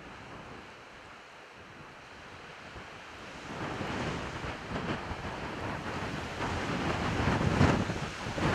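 Wind buffeting the camera microphone, a rushing noise that swells into stronger gusts about halfway through.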